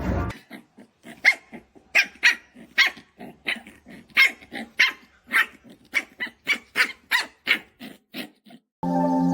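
A young puppy barking in short high yips, about two a second, in a long run of around twenty.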